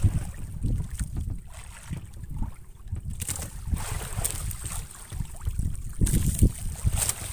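Wind buffeting the microphone on an open-sea outrigger fishing boat in uneven gusts, with sea water splashing and hissing against the hull from about three seconds in.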